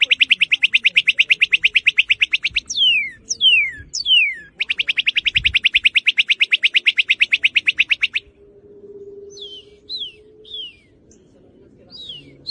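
Northern cardinal singing: two long, rapid trills of repeated notes, each about three seconds, with sharp down-slurred whistles between them, then a few shorter, fainter down-slurred notes toward the end.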